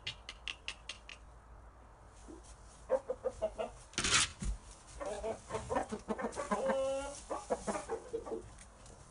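Game rooster pecking at a wall, a quick run of sharp taps, then low clucking and grumbling calls. Near the end comes one longer pitched call, and about four seconds in there is a single short noisy burst.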